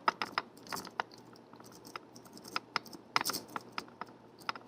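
A dimple rake worked in the keyway of a Nestling dimple padlock: irregular sharp metallic clicks and scrapes as it rakes over the pins, in two quick flurries, one at the start and one about three seconds in.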